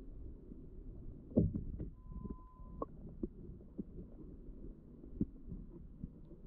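Muffled underwater sound from beneath a kayak: irregular low thumps and knocks, the loudest about a second and a half in, with a short steady beep about two seconds in.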